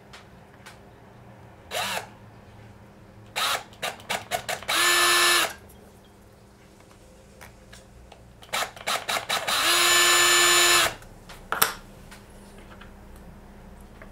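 Cordless drill with a 3 mm bit drilling out the holes in 3D-printed plastic parts. The trigger is blipped and pulsed in short stutters, then held for a steady full-speed run of about a second. This happens twice, the second run a little longer, with one more short blip after it.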